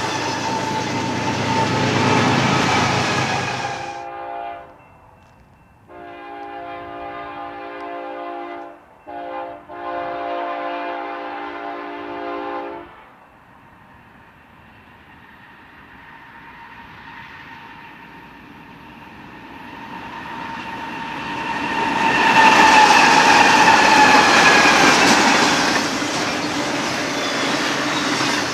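BNSF diesel locomotive's multi-note air horn sounding a long blast, a short one and another long blast. Around it, a double-stack intermodal freight train rolls past with clattering and squealing wheels. The rumble of the next train builds from faint to loud as it approaches and passes.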